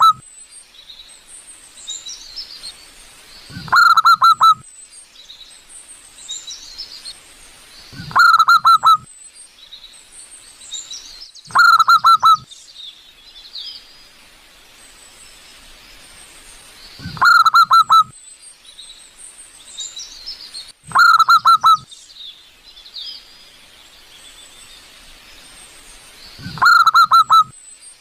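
Wild zebra dove (perkutut) cooing: six short, loud bursts of rapid stuttering coos, each about a second long, repeating every four to five seconds. Faint high chirps of small birds fill the gaps between the phrases.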